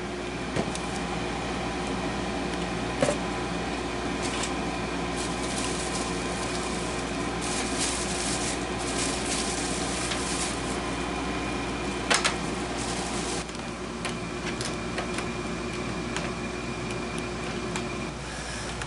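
A steady mechanical hum with a few fixed tones, broken by occasional sharp clicks, about one early on and a louder pair near the middle.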